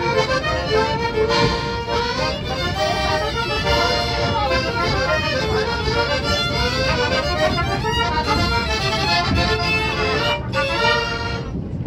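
An accordion and a trumpet playing a tune together, live. The music breaks off just before the end.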